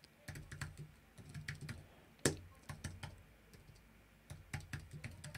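Typing on a computer keyboard: irregular runs of quick keystrokes, with a brief pause about two-thirds of the way through before typing resumes.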